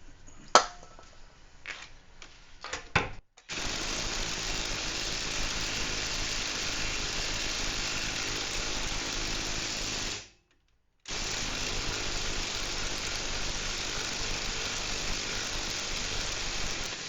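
A few clicks and knocks, then a cordless impact wrench running steadily to back out the rear wheel hub bearing bolts. It starts a few seconds in, stops briefly just past the middle, and runs again until near the end.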